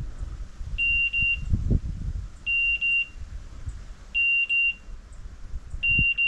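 Hunting dog's electronic beeper collar sounding groups of three short, high beeps about every 1.7 seconds. A rapid repeated pattern like this is what such collars give on point mode, when the dog stands still on point. Low knocks and rustling from movement sit under the beeps, strongest about one and a half seconds in.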